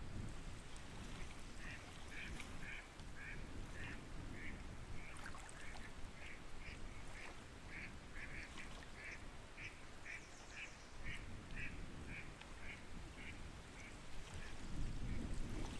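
Ducks quacking: a long run of short, evenly spaced calls, about two a second, over a low rumble.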